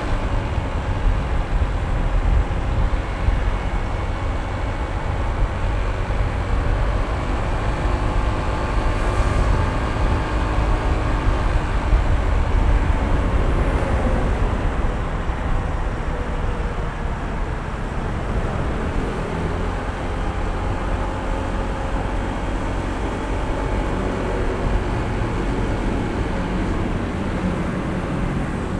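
Honda ADV160 scooter's single-cylinder engine running on the move, its pitch shifting a little with speed, under steady wind and road noise.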